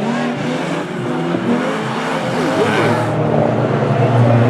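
Banger racing cars' engines running and revving around the track, several engine notes rising and falling over one another.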